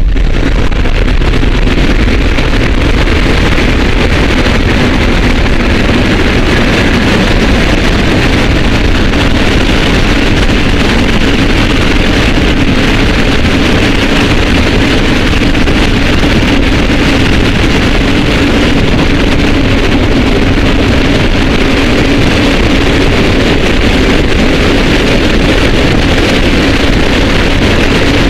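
Loud, steady roar of rushing air and turbofan engines inside a C-17 Globemaster III's cargo hold, its rear ramp open in flight, with a low hum running through the noise.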